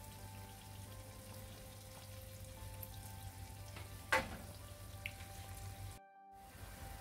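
Coconut oil sizzling and bubbling in an unniyappam (appe) pan as balls of idli batter deep-fry. A single sharp tap about four seconds in, and the sound cuts out briefly near the end.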